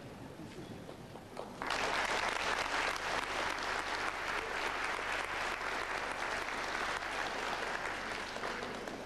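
Audience applauding, breaking out suddenly about a second and a half in and slowly tapering off near the end.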